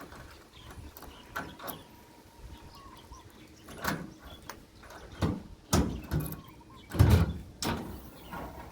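A handful of knocks and clunks, about five spread over several seconds, the loudest near the end.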